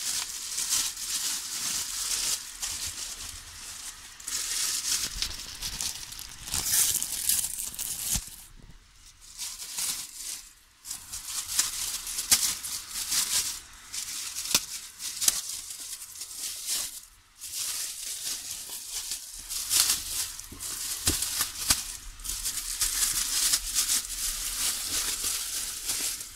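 Clear plastic packing wrap crinkling and rustling as hands pull and crumple it off a box, in irregular bursts with a few brief lulls.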